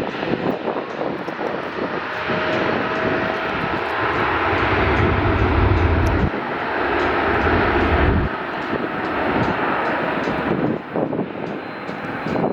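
Boeing 777F freighter's twin GE90 turbofan engines at takeoff power, a loud, steady jet noise with a faint tone running through it. A deep low rumble swells in the middle and cuts off about eight seconds in, and the noise then thins as the aircraft departs.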